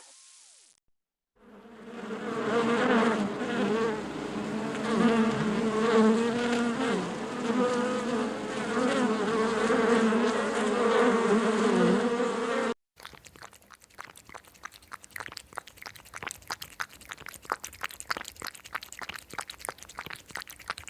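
Insects buzzing: a steady, slightly wavering drone, for about ten seconds. It cuts off suddenly and is followed by a quieter, dense crackle of small rapid clicks.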